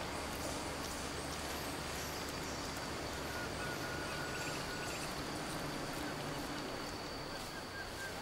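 Tropical forest ambience: a steady, high insect drone on one note, with scattered short high chirps and a drawn-out thin whistle from birds.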